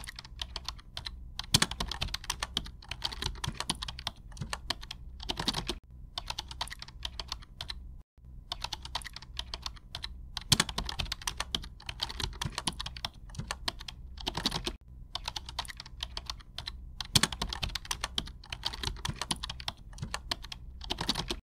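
Rapid, irregular keyboard typing clicks over a faint steady hum, briefly breaking off about eight seconds in.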